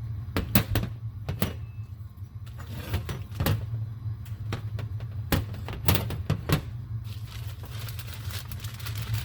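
Metal mower parts (a blade brake bracket and its hardware) handled by hand, giving a string of sharp light clicks and knocks through the first seven seconds, over a steady low hum.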